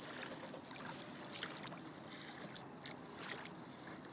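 Small waves lapping and splashing at the water's edge in short, irregular splashes, with a faint low steady hum underneath.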